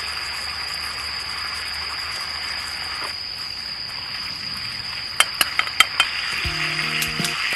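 Food sizzling in a pan with a soy sauce, mirin and sugar seasoning just added. A little past five seconds in, a utensil clinks against the pan about five times, and light background music begins near the end.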